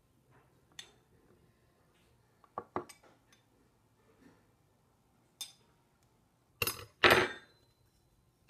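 Metal clinks and scrapes of a spoon against a metal garlic press as Play-Doh is cleared from it. There are scattered sharp clinks, a quick run of three a little under 3 s in, and the loudest two close together near the end, the last ringing briefly.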